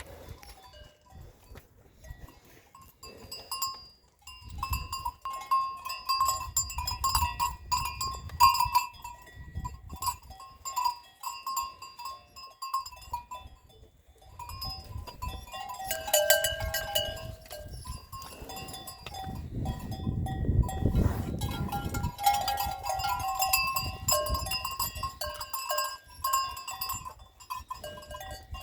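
Bells on grazing livestock clinking and ringing irregularly, with low rumbling stretches now and then.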